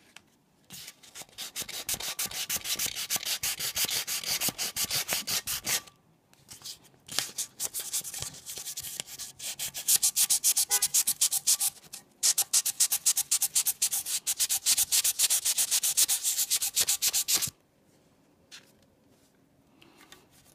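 800-grit wet/dry sandpaper rubbed back and forth over the aluminum body of a model-train passenger car, wet sanding out scratches: three runs of quick, even strokes, several a second, with short breaks between them, stopping a few seconds before the end.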